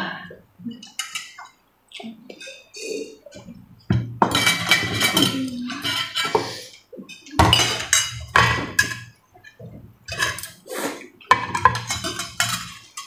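Metal forks and spoons clinking and scraping against plates and bowls as the dishes are gathered up, in several clusters of clinks with short pauses between.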